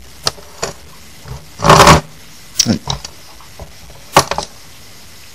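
Handling noise from a printed circuit board being held and tilted: a few light clicks and knocks, with a short, louder rush of noise about two seconds in.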